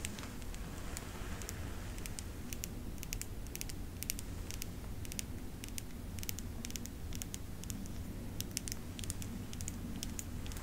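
Long fingernails tapping and clicking on a plastic mascara tube: sharp, irregular clicks, several a second and sometimes in quick runs, over a faint steady low hum.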